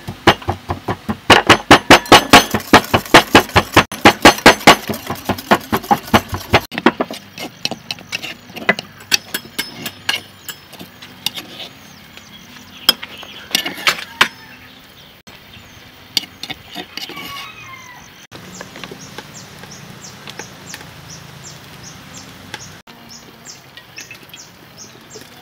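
A metal spoon clinking rapidly against a ceramic bowl as seasoning is stirred into sauce, about four to five strokes a second, stopping about seven seconds in. Scattered knocks of kitchen utensils follow.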